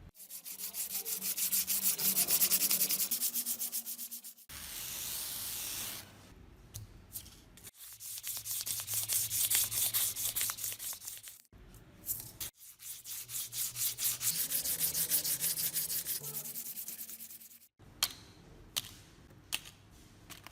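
Hand sanding during a rusty hammer restoration: quick, even back-and-forth rubbing strokes in several stretches that start and stop abruptly, with a few sharp clicks near the end.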